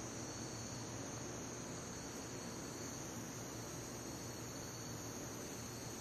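Steady background noise with no speech: a constant hiss, a thin high steady whine and a low hum, unchanging throughout.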